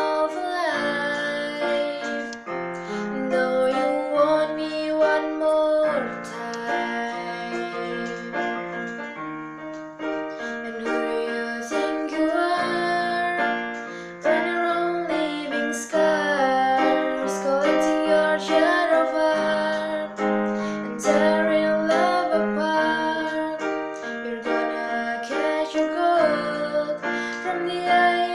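A woman singing a slow pop ballad over an electronic keyboard played with a piano sound, its chords and bass notes held under the sung melody.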